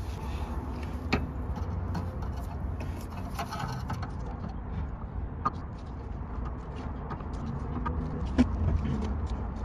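Rear brake pads being slid and pressed into a VW Golf Mk5's caliper carrier: a few light metallic clicks and scrapes, the sharpest near the end, over a steady low hum.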